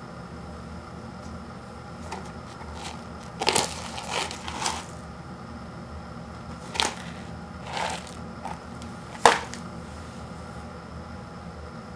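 Handling noises from an instant noodle paper cup and its small seasoning packets being picked up, turned and set down on a wooden floor. There is a brief cluster of rustles and taps around the middle, then a few single sharp taps, the loudest near the end, over a steady faint hum.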